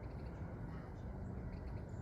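Outdoor background noise: a steady low rumble with a few faint, short, high chirps.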